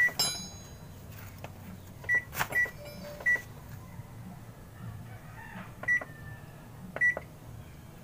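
Control-panel beeps of a Sharp top-load automatic washing machine as it is switched on and its buttons pressed: six short, high beeps of the same pitch at uneven intervals, with a click about two and a half seconds in.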